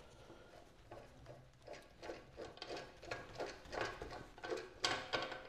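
Light metallic clicks and ticks, about three a second and louder toward the end, from the guide and blade adjusters of a Vevor SD-002 wire stripping machine being set before a test strip.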